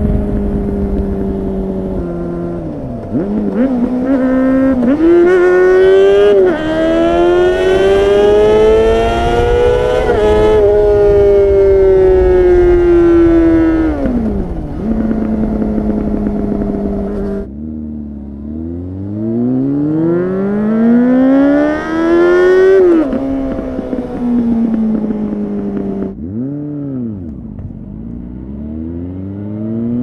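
2004 Honda CBR600RR (PC37) inline-four engine through a LeoVince slip-on muffler with no catalytic converter, riding: the revs climb twice through the gears with stepped drops at each upshift and fall away in between. Wind rushes over the microphone.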